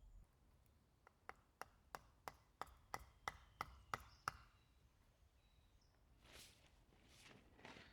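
A tarp peg being hammered into the ground: about eleven sharp, ringing strikes at roughly three a second, the last ones the loudest.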